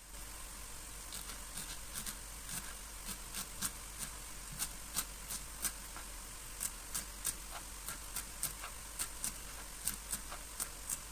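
Kitchen knife chopping fresh coriander leaves on a wooden cutting board: sharp, uneven taps at about two a second, starting about a second in, over a steady hiss.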